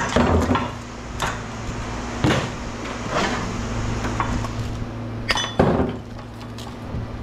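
Scattered metal clanks and knocks, about six over several seconds, as scrap metal parts are handled and set down, over a steady low hum.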